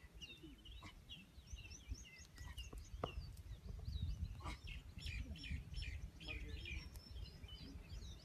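Small birds chirping and twittering: many short, high calls scattered throughout, over a low steady rumble and a few faint clicks.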